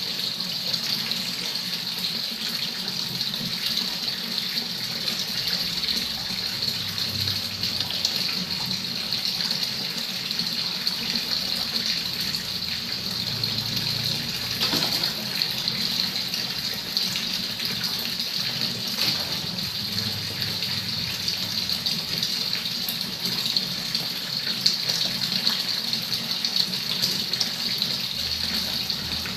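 A thin stream of water pouring steadily into a shallow tiled pond, splashing on the surface without a break.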